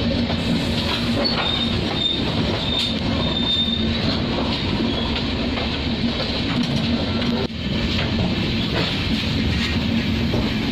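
Passenger train coaches rushing past close by at speed: a steady roar of steel wheels on rail with clatter. A thin, high wheel squeal comes and goes during the first few seconds.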